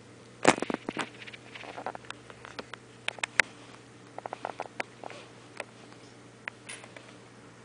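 Irregular clicks, taps and knocks of a handheld camera being moved and set down, a dense cluster about half a second in and scattered ones after.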